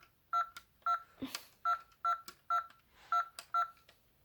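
Number buttons of a Minnie's Happy Helpers toy phone pressed one after another, each giving a short electronic beep of the same pitch, about two a second, with a few plastic clicks between them.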